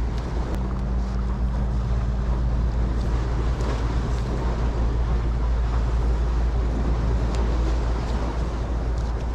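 Steady wind buffeting the microphone, with sea surf washing against the tetrapods and a steady low hum underneath.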